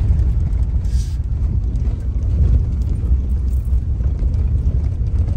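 Steady low rumble of a car driving slowly over a rough road, heard from inside the cabin, with a brief hiss about a second in.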